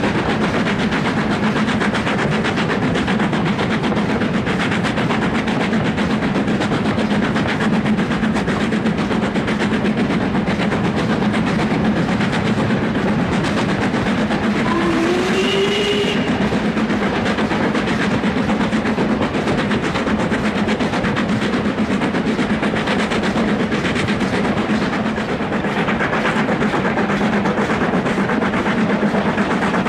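LMS Stanier Black Five 4-6-0, a two-cylinder steam locomotive, working steadily uphill with a loaded train. It is heard from the carriages behind it as continuous chuffing mixed with the running noise of the coach wheels on the rails. A brief rising tone sounds about halfway through.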